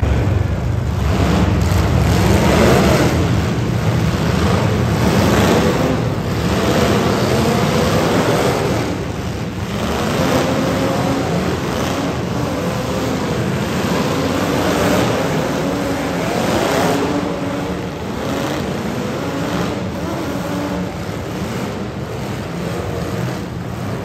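Several demolition derby cars' engines running hard and revving up and down together, with tyres spinning on the dirt. The sound echoes around an indoor arena.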